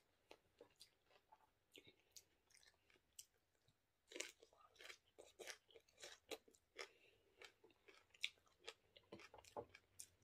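A person chewing a hand-fed mouthful of water spinach (kangkong) and rice close to the microphone. It comes as faint, irregular crunches and wet mouth clicks, sparse at first and coming thicker from about four seconds in.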